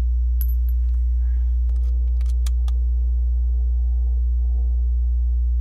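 Steady low hum with a scattered handful of light clicks, from a rifle being handled between shots.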